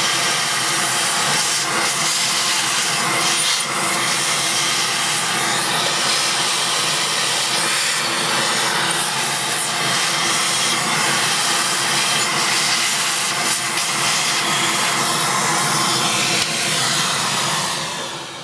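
Vacuum cleaner running steadily, its hose nozzle sucking dust and fluff out of a graphics card's heat sink fins and cooling fan. Near the end the motor is switched off and winds down.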